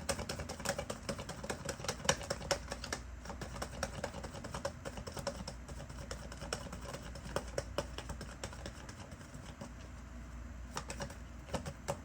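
A deck of tarot cards being shuffled by hand: irregular runs of light papery clicks and slaps, dense for the first few seconds, thinning out, then picking up again near the end.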